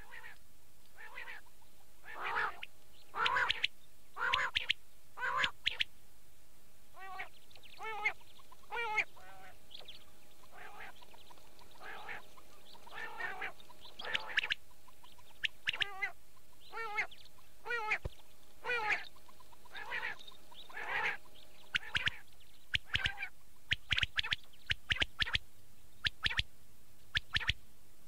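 Quail calling over and over: short, sharp calls about once a second, some given as a quick warbling trill, as used to call birds in for hunting.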